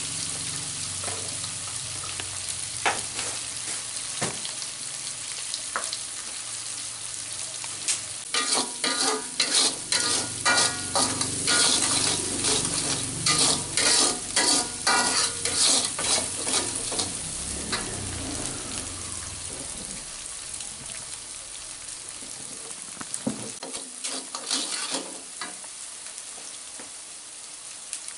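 Ground paste of shallots, garlic, red chili and candlenut sizzling in oil in a wok as it fries toward browned and fragrant. A metal spatula stirs and scrapes it in a busy run of strokes through the middle, with a few single strokes before and after, and the sizzle goes on alone between them.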